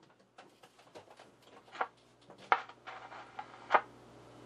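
Sparse clicks and crackles from a hand handling clip leads at the chassis of a Philco 37-640 tube radio, over a faint steady low hum that comes in about two seconds in.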